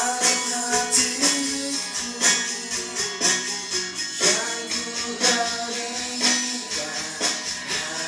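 Amateur band playing live, with a tambourine jingling on a steady beat under sung melody.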